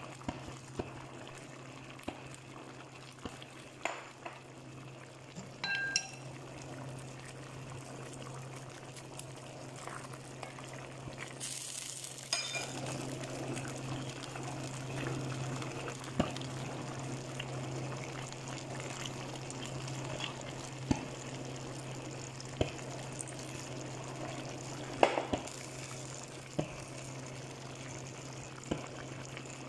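Chicken stew in tomato sauce simmering in a stainless steel pan, with soft bubbling and clinks of a utensil against the pan, one ringing clink about six seconds in and a sharp click about 25 seconds in the loudest. A steady low hum runs underneath.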